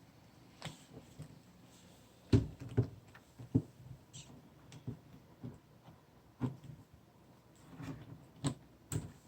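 Irregular knocks and light clicks from handling a laptop's replacement LCD panel as it is set into the screen lid, with a cluster of the loudest knocks about two to four seconds in.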